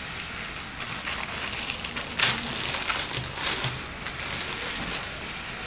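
Shiny metallic foil wrapping crinkling and crackling as it is handled and peeled open by hand, with louder crackles about two seconds in and again about three and a half seconds in.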